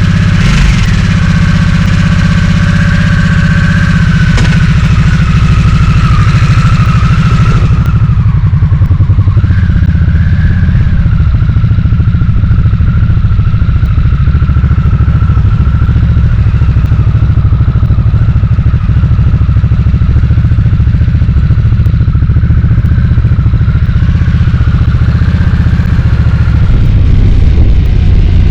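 Harley-Davidson Nightster's 60-degree Revolution Max V-twin running at a fairly steady speed, with a higher whine over the engine note; a hiss high in the sound falls away about eight seconds in.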